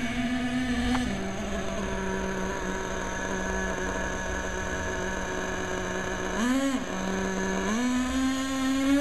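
HPI Savage nitro RC monster truck's small glow-fuel engine running at a steady note. The note drops slightly about a second in, blips briefly up and back down with a quick throttle stab about two-thirds of the way through, then climbs to a higher steady pitch near the end.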